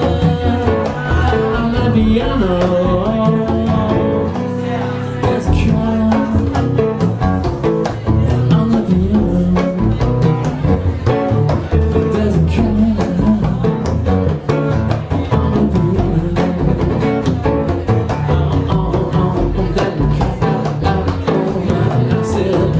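Live acoustic-jazz band playing an instrumental stretch: a hollow-body electric guitar takes the lead over walking upright double bass and hand-played congas. Picked up by a camera's built-in microphone in a small room.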